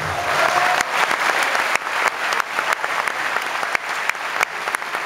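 Audience applauding, many hands clapping, dense at first and thinning toward the end into more scattered claps.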